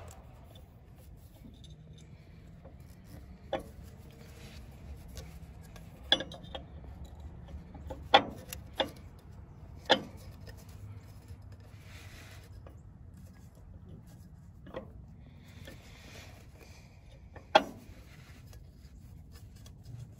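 A new rubber cup seal being worked by hand onto the steel drive shaft of a diesel injection pump: soft rubbing and handling noise with a few scattered sharp clicks, the loudest about eight seconds in and near the end.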